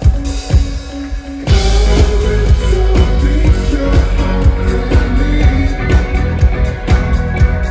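Live alternative dance-rock band playing through a PA, with a steady drum beat; the full band comes in louder with heavy bass about a second and a half in.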